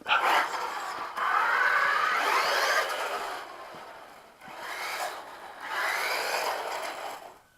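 Electric RC car, the Radio Shack Nitro Burner running on a 3-cell LiPo, driving off in several surges of throttle, its motor and tyres making a rasping noise that rises and falls. The noise stops just before the end.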